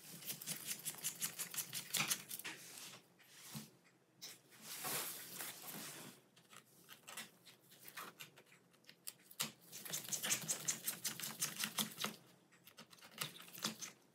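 Small Torx T6 screwdriver turning out a laptop's bottom-panel screws: several runs of rapid fine clicking and ticking, each lasting one to three seconds, with short pauses between.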